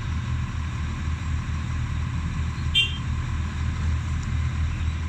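Excavator's diesel engine running with a steady, even rumble, and one short metallic clink about three seconds in.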